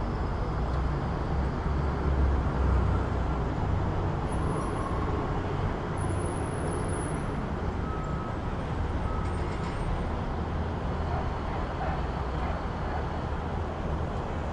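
City street traffic noise: a continuous wash of passing vehicles with a low rumble that swells about two seconds in, and a few faint short high tones later on.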